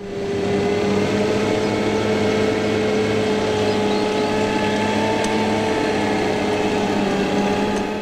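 New Holland farm tractor's diesel engine running at a steady speed while it pulls a cultivator across a field.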